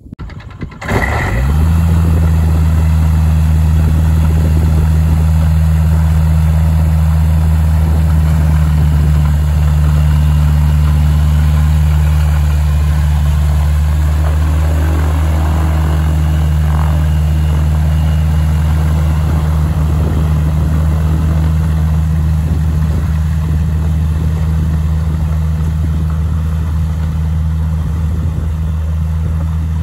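A light seaplane's engine and propeller running with a steady low drone, coming in suddenly about a second in and holding level.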